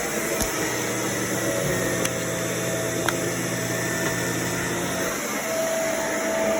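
Bagless vacuum cleaner running steadily, its motor humming under a constant rush of air, with a few sharp ticks of dirt being sucked up.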